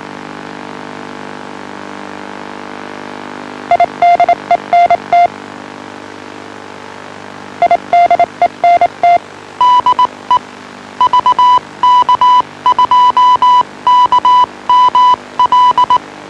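Morse code identification sent as a single steady tone keyed on and off in short and long elements: two runs at a lower pitch, then a longer run at a higher pitch from about halfway through. Under it runs a steady low buzzing hum on the transmitted audio.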